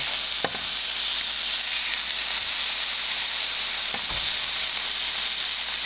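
Striped bass fillets sizzling steadily in hot oil in a nonstick frying pan, with a couple of faint taps as metal tongs turn the pieces, about half a second in and again about four seconds in.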